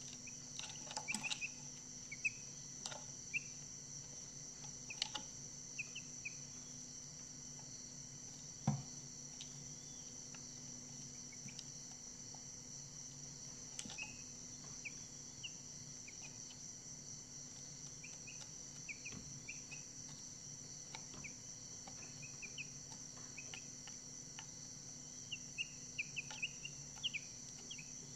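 A steady high-pitched cricket trill, with scattered short faint peeps from young chicks and a few soft taps.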